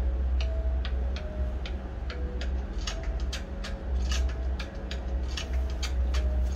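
Repeated sharp ticking clicks, several a second, over a steady low hum.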